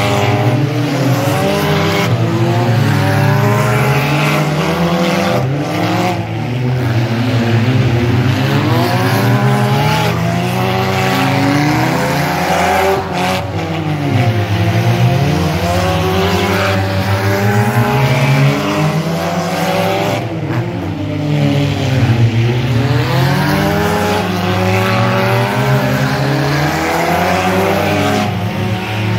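Demolition derby cars' engines revving hard, their pitch rising and falling again and again. Loud and continuous.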